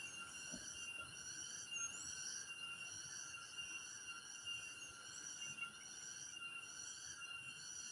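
A steady, high-pitched chorus of several overlapping tones at different pitches, pulsing slightly, like a chorus of forest insects: the strange sound heard on the southern slope of Mount Lawu.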